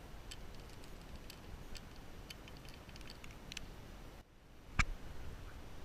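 Faint, irregular small clicks, about two a second, from handling a fishing rod and spinning reel, with one sharper knock near the end.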